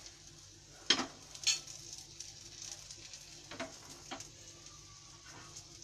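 Minced-chicken seekh kebabs and patties shallow-frying in a little oil, with a faint steady sizzle. A few light clicks come as the kebabs are turned in the pan.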